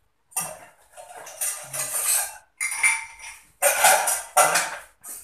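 Dishes and utensils clattering as household things are handled and packed: a run of sharp clanks and rattles, one or two a second.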